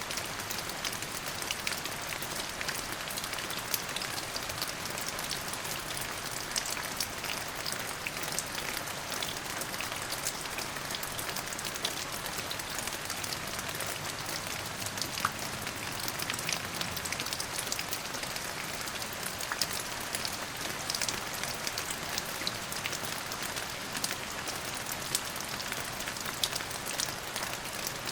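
Steady rain falling, with a dense patter of individual drops ticking on a hard surface.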